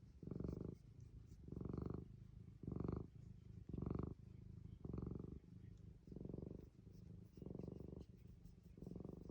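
Domestic cat purring, a steady buzzy purr that swells and fades about once a second with each breath in and out.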